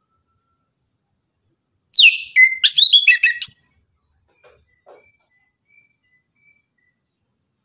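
Chestnut-capped thrush (anis kembang) singing one loud, quick phrase of sweeping whistled notes, swooping down and then up, about two seconds in and lasting under two seconds. A few faint thin bird notes sound before and after it.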